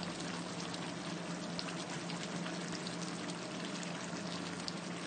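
Crabs simmering in a pan of thick sauce: a steady bubbling hiss scattered with small pops, over a low steady hum.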